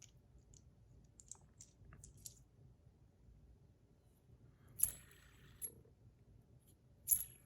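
Stainless steel bar spinner fidget being handled: faint small ticks, then a sharper metallic click about five seconds in and a louder one near the end.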